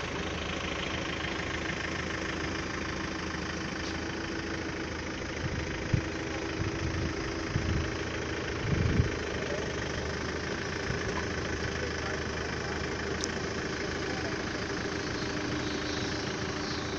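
A vehicle engine idling steadily, with a few low bumps about six to nine seconds in.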